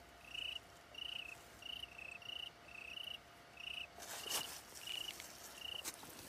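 Faint cricket chirping, short even chirps about twice a second. From about four seconds in, light splashes in shallow muddy water as a hand grabs at an eel.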